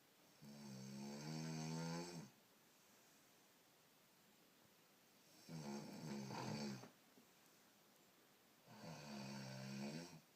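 A sleeping person snoring: three snores, each about a second and a half long with a steady pitched drone, coming about four seconds apart.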